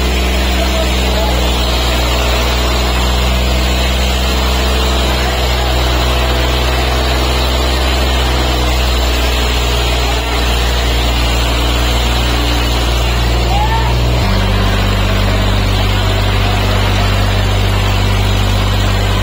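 Diesel tractor engines held at high throttle, straining under load as two hitched tractors pull against each other. Their note runs steady, then changes abruptly about fourteen seconds in.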